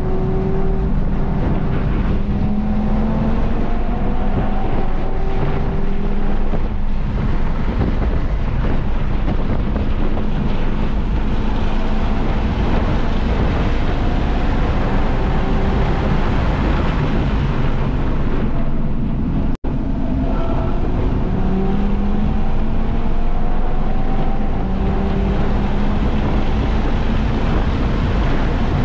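Audi RS3's turbocharged five-cylinder engine under hard acceleration on a racetrack, its pitch climbing and breaking off again and again, with heavy wind buffeting on the microphone. The sound cuts out for an instant about two-thirds of the way through.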